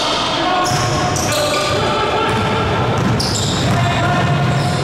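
Basketball bouncing on a gym floor during a game, amid a steady din of play with brief high squeaks.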